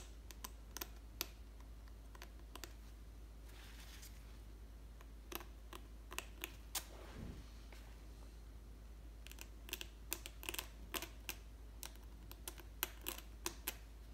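X-Acto craft knife blade scratching dried watercolour paint off the paper to lift out a thin light line. It makes faint, short, sharp scratches in irregular clusters, thickest near the end.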